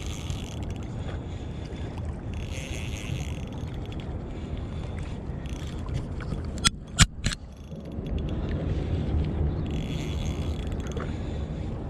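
Shimano Stradic CI4+ 1000 spinning reel whirring in short bursts every few seconds as line is wound in during a fight with a big fish, over a steady rumble of wind and water. A few sharp knocks come about seven seconds in.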